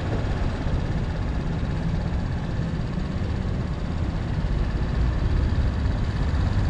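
Low, steady rumble of motorbike engines idling in stopped traffic, mixed with street traffic noise.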